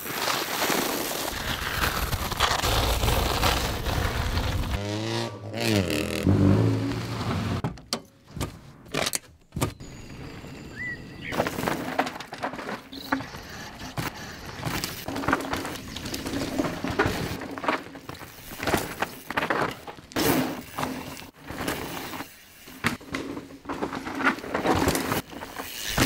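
Mountain bike being ridden hard: tyres running over a gravel track, then rolling and skidding over a dirt forest trail, with many sharp knocks and rattles from the bike over the bumps.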